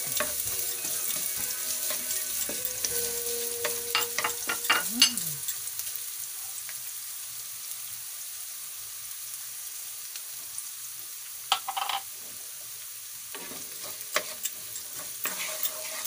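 Chopped garlic and onion sizzling in hot oil in a pan, a steady high hiss, while a wooden spatula stirs them with scraping knocks against the pan, in bursts about four seconds in, near the twelfth second and again toward the end.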